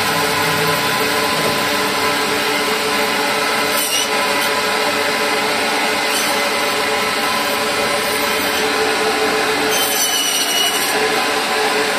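Electric meat band saw running steadily with a continuous hum and hiss, marked by brief higher scraping sounds about four seconds in and again about ten seconds in.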